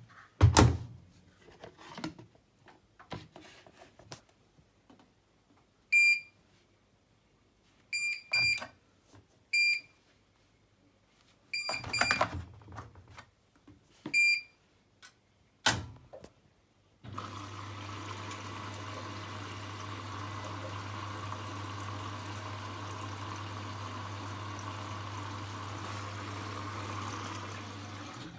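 Bosch WAN28281GB washing machine: a few knocks and clicks, then about seven short beeps from its control panel. About seventeen seconds in, water starts filling the machine with a steady hiss over a low hum.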